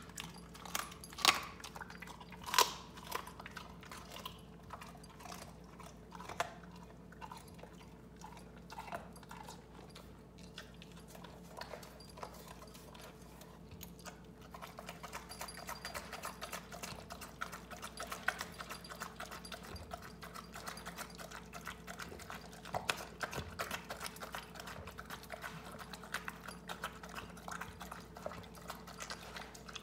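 Giant schnauzer eating raw chicken and stew from a stainless steel bowl: a few sharp clacks in the first three seconds, then dense, rapid chewing and crunching from about halfway in.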